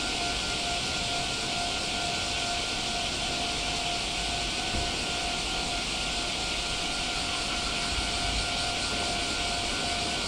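Steady whine over an even hiss from a Meitetsu electric train standing still, its onboard equipment running; no change in pitch or level.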